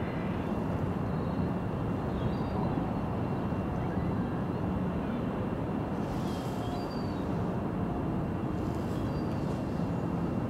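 A steady low rumble of dockside outdoor ambience, with small birds chirping briefly now and then, most clearly about six and nine seconds in.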